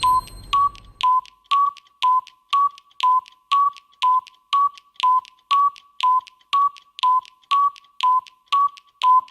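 Electronic tick-tock of a countdown timer: short beeps about two a second, alternating between a lower and a slightly higher pitch, each with a sharp click. At the start a brief low whoosh with a faint high chime comes in under the ticking.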